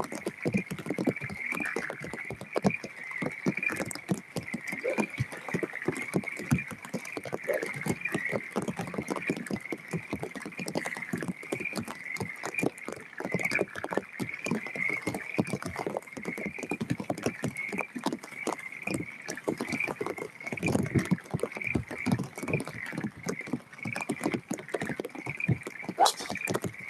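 A chorus of frogs calling steadily, a continuous pulsing trill, over a dense crackle. Near the end comes one sharp crack as a golf driver strikes the ball off the tee.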